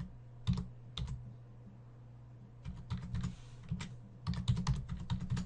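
Computer keyboard keystrokes as a short password is typed and then typed again to confirm it. A couple of single taps come first, then a short run of keys about three seconds in, and a quicker run near the end.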